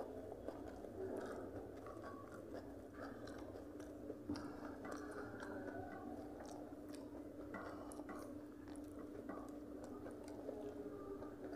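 People eating rice and fish with their hands: chewing, and fingers mixing rice on steel plates, with scattered small clicks, over a steady low hum.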